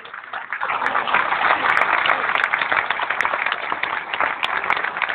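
Audience clapping, swelling up about half a second in and then continuing as steady applause.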